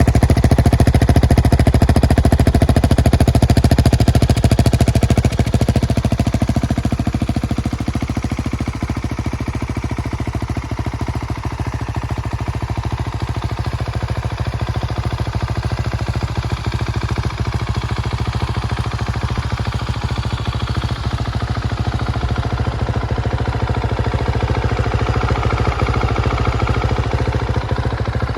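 Husqvarna 701 Supermoto's single-cylinder engine running through a Remus aftermarket exhaust: a continuous, rapid run of deep exhaust pulses. It is louder for about the first five seconds, then settles a little lower and steady.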